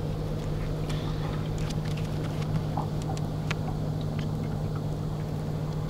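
A boat motor running with a steady low hum, and a few faint clicks over it.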